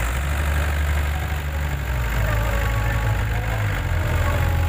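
Engine running with a steady low rumble.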